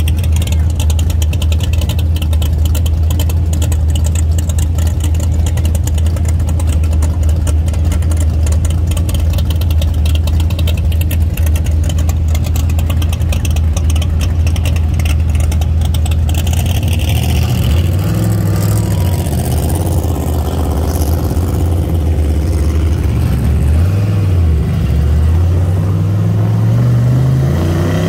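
Muscle car engine idling with a steady low rumble while stopped, then revving and accelerating away from about seventeen seconds in, its pitch climbing, dropping at a gear change and climbing again near the end.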